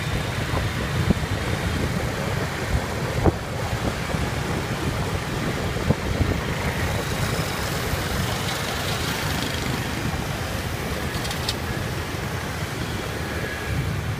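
Wind buffeting the microphone on a moving scooter, over a steady low rumble of motorbike street traffic, with a couple of sharp knocks about three and six seconds in.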